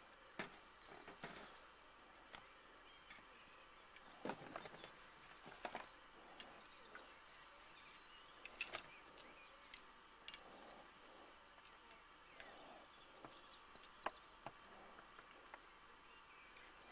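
Near silence: faint outdoor ambience with scattered light knocks and clicks as an angler handles his fishing gear and bait tray. Faint, short high chirps come and go.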